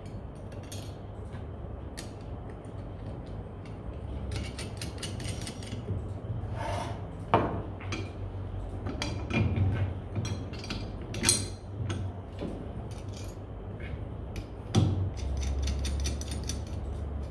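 Steel tiller-hiller tines being fitted into their hub by hand: irregular metallic clicks and clinks as blade meets hub, with a few louder knocks.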